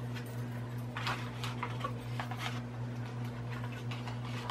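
A handful of faint, scattered clicks and taps as small plastic mini lipstick tubes are handled, over a steady low hum.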